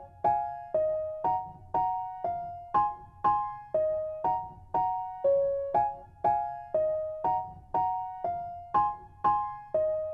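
Background music: a gentle keyboard melody of struck two-note chords, about two a second, each one fading away before the next.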